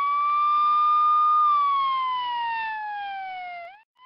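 Wailing siren: one tone rises slowly, holds, then falls steadily for about two seconds and cuts off, then starts rising again near the end.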